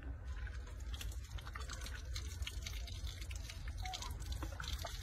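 Wet smacking and clicking of a baby monkey sucking on its fingers, with water dripping, over a steady low rumble.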